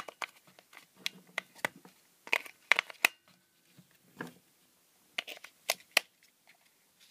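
AA batteries being pressed into a plastic battery holder, making a series of irregular clicks and knocks along with the rustle of the plastic casing being handled.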